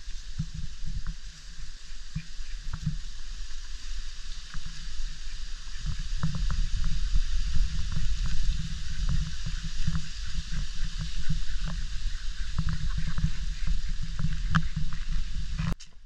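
Wind buffeting the microphone in gusts: a rough, uneven low rumble over a steady outdoor hiss with scattered small ticks. The rumble grows stronger about six seconds in and stops abruptly near the end.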